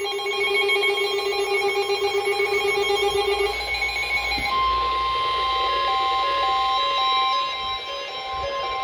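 Weather radio emergency alert tones for a National Weather Service warning. A fast-warbling alarm tone sounds for about three and a half seconds, then a steady single-pitch warning tone takes over, with short repeated beeps under it.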